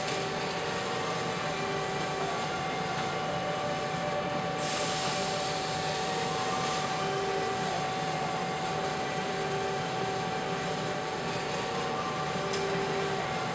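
Steady hum of workshop machinery, with a few held tones over it and a hiss that grows louder about four and a half seconds in.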